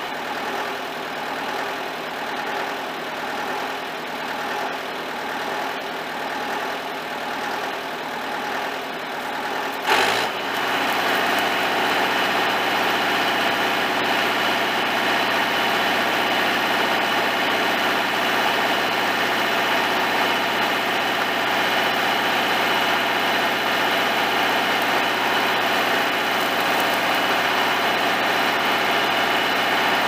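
Engine-driven welder's engine running steadily at idle; about a third of the way in, a sharp click, and the engine speeds up and holds a higher, steady speed, as it does when it comes up to welding speed.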